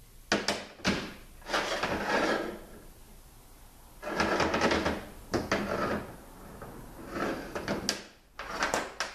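Metal parts of a transmission valve body being handled on a steel workbench: several sharp clicks and short scraping, sliding sounds in separate bursts.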